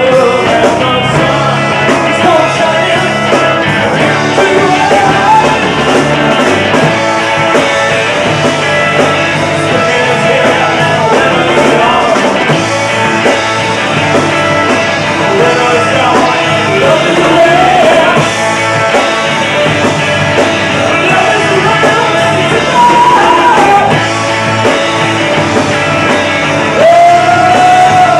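Live rock band playing a song: a male lead vocal sung over electric guitar, electric bass and a drum kit.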